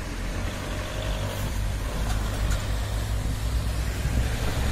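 Cars and a delivery van driving over a railway level crossing, a steady run of tyre and engine noise, with wind rumbling on the microphone.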